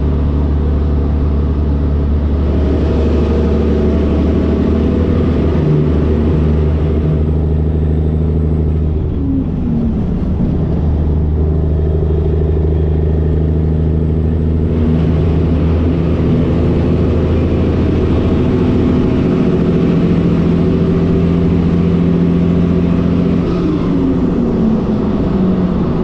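Diesel engine of a Peterbilt 362 cabover semi truck running steadily under load at highway speed. Its engine speed falls twice, about a third of the way in and again near the end.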